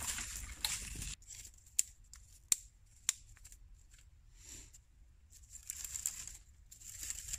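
Dry wood shavings, bark strips and split kindling sticks being handled and laid down, rustling and crackling. A few sharp clicks in the middle as sticks knock together.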